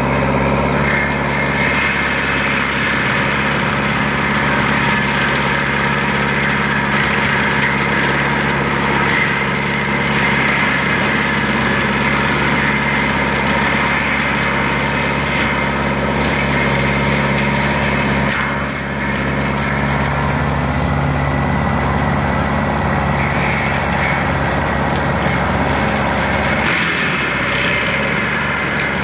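Lamtrac LTR6125 tracked carrier's engine running steadily at working revs, driving its Denis Cimaf 180D forestry mulcher head as it grinds into brush and small trees. The level dips briefly about two-thirds of the way through.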